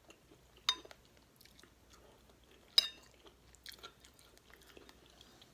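Close-up chewing and mouth sounds of someone eating beef stew. Two sharp, ringing clinks, like a utensil striking a dish, come about a second in and again about three seconds in, with a few lighter clicks after.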